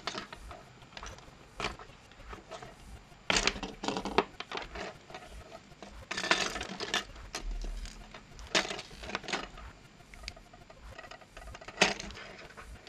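Hard plastic headphone parts and cable clicking and scraping as a cut wire is pulled out through the headband, in short bursts every few seconds.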